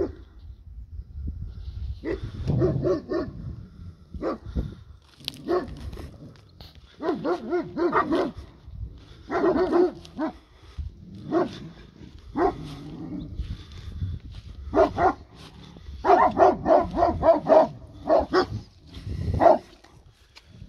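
Livestock guardian dogs barking in repeated bouts of several quick barks, with short pauses between bouts: alarm barking at a wolf in the field beyond their fence.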